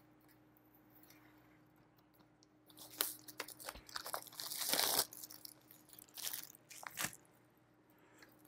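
Plastic shrink wrap being slit and peeled off a vinyl LP gatefold jacket, crinkling and crackling in several short bursts from about three seconds in, loudest around the middle.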